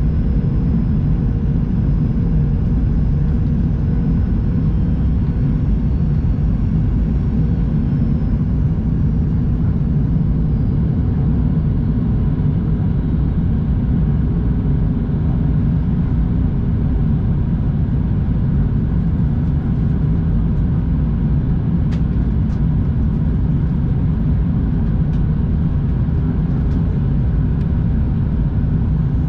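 Steady cabin noise inside a Boeing 737-800 in flight: the low roar of airflow and its CFM56-7B engines, with a faint engine tone that shifts slightly in pitch several seconds in.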